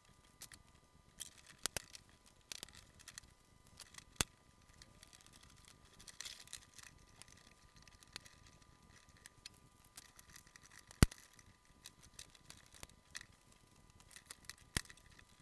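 Scattered clicks and light knocks as spotlight heads are handled and clipped onto a metal spotlight rail, with one sharper click about eleven seconds in.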